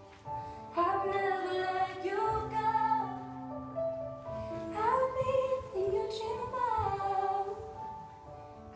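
A slow song with a woman singing, her sung phrases gliding up and down over a soft sustained accompaniment.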